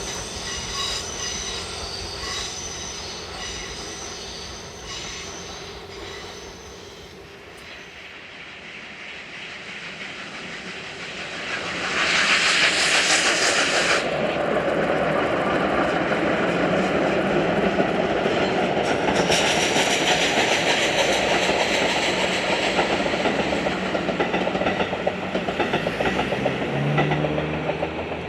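Train running on rails: faint wheel squeal at first, fading away. Then the train sound builds again and grows loud, with a strong hiss for about two seconds partway through, and wheel noise on the rails to the end.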